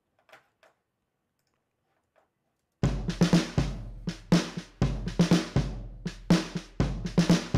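Faint ticks at first, then about three seconds in a drum track starts playing back: a kick drum with a long, low boom and snare hits with hi-hats in a steady beat. This is the song's drum group heard through the mix in progress.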